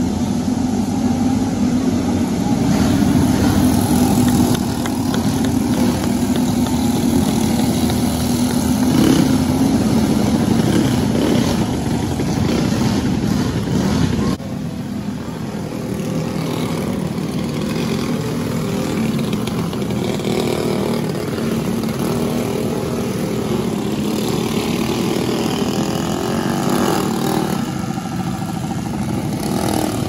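Racing flat karts' small engines running together, a steady engine sound with no let-up; the sound changes abruptly about halfway through.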